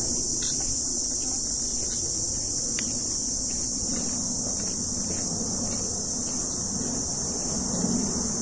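Insects buzzing in a steady, continuous high-pitched drone, with a low rumble and the scuff of footsteps on a dry dirt trail beneath.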